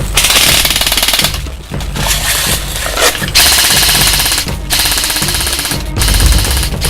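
Rapid automatic gunfire, a fast, even rattle that breaks off briefly twice, over music with a steady bass line.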